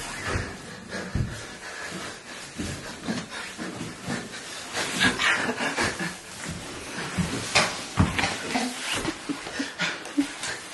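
A person breathing hard in ragged, irregular gasps with effort noises, as from straining through a very hard workout.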